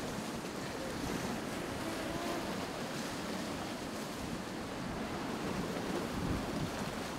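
Ocean surf washing in steadily, with wind rumbling on the microphone.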